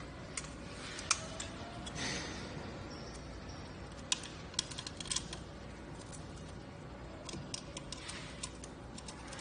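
Scattered light clicks and taps of a metal mounting bracket and clamp being handled and fitted against a carbon-fibre exhaust heat shield, with a soft rustle about two seconds in.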